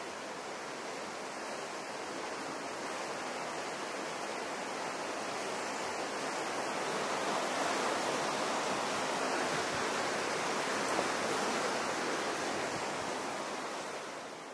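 Steady rush of flowing water, growing louder toward the middle and fading near the end.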